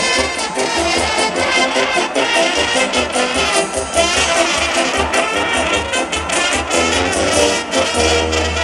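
Amplified live Balkan brass band music: trumpets and other horns playing a melody over a regular bass drum beat.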